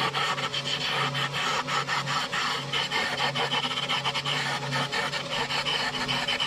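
Wood lathe spinning a cherry spoon blank while a gouge cuts the handle down to size: a steady motor hum under a continuous scratchy cutting noise.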